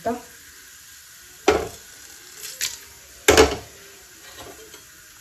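A metal spoon knocking and scraping against a steel pot while stirring whole spices: two sharp clanks about two seconds apart with a lighter scrape between. Under them runs a faint sizzle of whole spices and bay leaves frying in hot oil.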